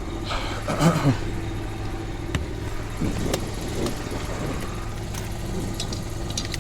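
An engine idling steadily, with a brief louder clatter about a second in and a few light clicks later.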